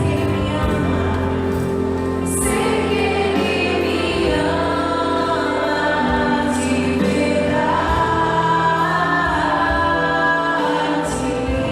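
Choir singing a slow hymn with music, in long held notes.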